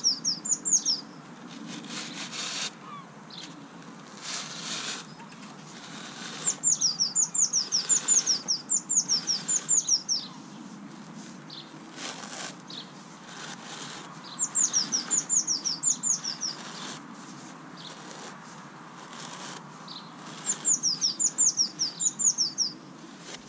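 A songbird sings repeated phrases of quick, high, falling notes, in bursts of two to three seconds a few seconds apart. Between the phrases come short gritty scrapes as a plastic pipe is worked down into damp sharp sand.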